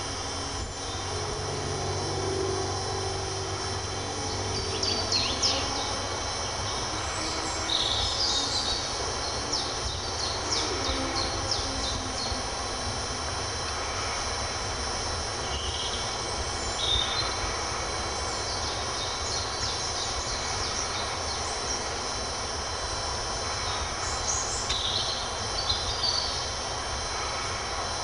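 Spring woodland ambience: birds singing in short, high phrases every few seconds over a steady background hiss and low rumble.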